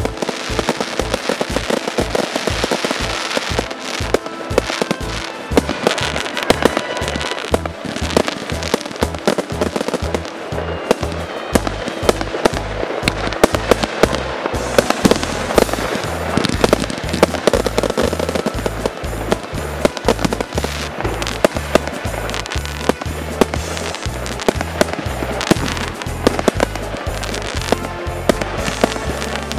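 Fireworks display: a rapid, continuous barrage of aerial shell bangs and crackling bursts, many a second, with music playing underneath.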